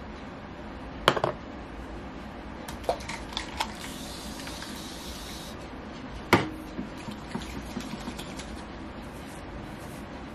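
Scattered small clicks and taps of objects being picked up and handled, with a sharper knock about a second in and another about six seconds in. A short soft hiss sounds in the middle.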